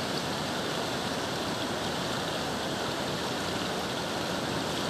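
Swollen river floodwater rushing over a submerged bridge, a steady, even rushing.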